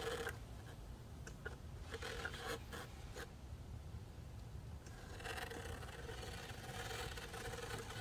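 Axial SCX10 III RC crawler's electric motor and geared drivetrain whining as it climbs over rocks. The whine stops just after the start, leaving a few faint knocks and scrapes against the stones, and comes back about five seconds in. Its transmission gears have been flipped to cure a clicking noise, which the owner thinks has fixed it.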